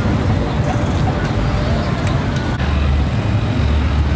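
Steady rumble of street traffic. A deeper vehicle engine rumble comes in about two and a half seconds in, with a few light clicks over it.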